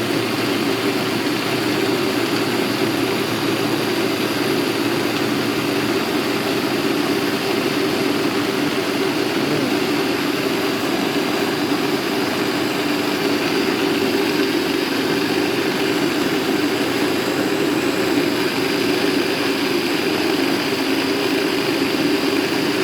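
Electric blender motor running steadily, pureeing chopped remedy ingredients with a little water, then switched off abruptly at the very end.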